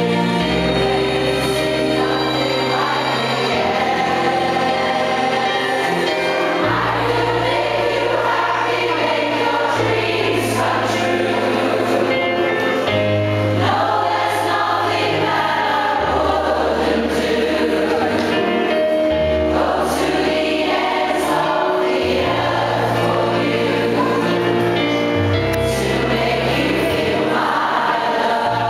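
A choir of many voices singing together, accompanied by a bass line whose notes change every couple of seconds.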